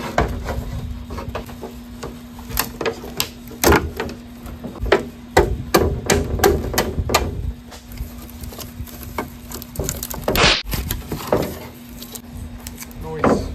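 Hammer striking a wedge driven into the seam of a fiberglass (FRP) wing piece, a series of sharp, irregular knocks, to release the part so it can be pulled apart.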